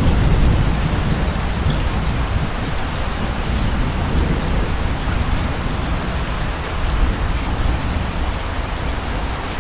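Steady rain falling, with a low rumble of distant thunder dying away over the first few seconds and a faint swell of rumble again about seven seconds in.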